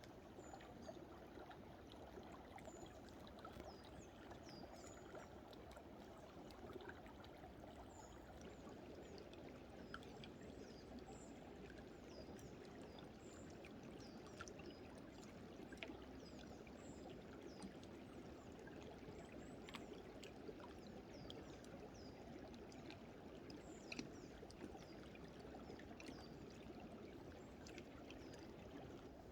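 Faint stream water running under thick winter ice: a steady low rush, with many small, high plinks and ticks over it, the odd sound of water moving beneath the frozen surface.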